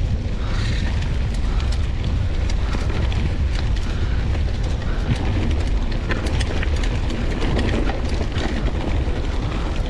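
Mountain bike rolling downhill over a rough grassy dirt trail: a steady low rumble of wind on the microphone, with tyre noise and many quick clicks and rattles from the bike jolting over bumps.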